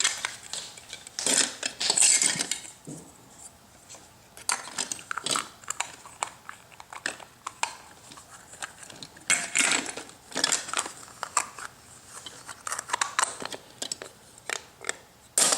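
Small hard clips clicking, clinking and rattling as they are handled, rummaged through and dropped into a container, in irregular clusters with short pauses between.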